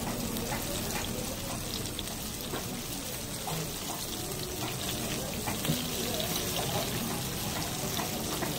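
Battered bhajias (fritters) deep-frying in a large kadai of hot oil: a steady sizzle and bubble of the oil around the frying batter.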